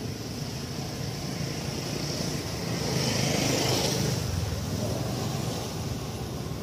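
Steady outdoor background noise with a low rumble, swelling for a second or two in the middle before settling back.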